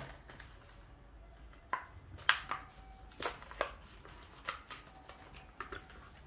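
Hot Wheels blister pack being opened by hand: a series of sharp crackles and pops from the plastic blister and cardboard backing, about half a dozen spread over several seconds.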